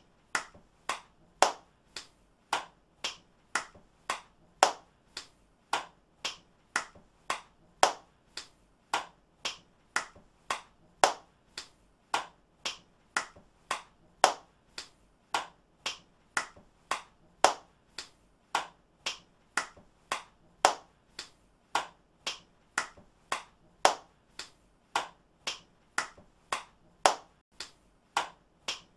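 A person clapping their hands in a steady rhythm, about two claps a second. It is a short recorded clip looped over and over, so the same pattern of louder and softer claps comes round every few seconds.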